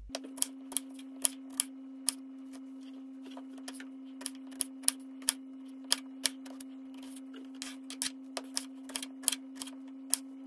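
Kitchen knife chopping peaches on a wooden cutting board: sharp, irregular knocks of the blade on the board, about two a second with a brief pause early on, over a steady low hum.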